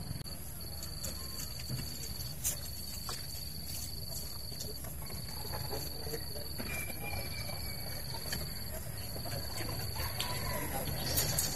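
An insect trilling at one steady high pitch, in repeated phrases of about a second with short breaks between them, over low background noise. A couple of faint clicks come through, one about two and a half seconds in and one near the end.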